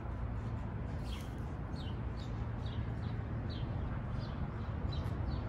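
A small bird chirping over and over: short, downward-sliding chirps about two a second, starting about a second in, over a steady low background rumble.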